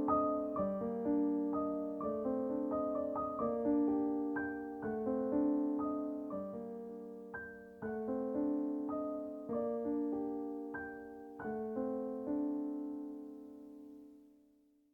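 Soft background piano music: a slow, gentle melody of single struck notes over sustained chords, ending on a held note that fades away near the end.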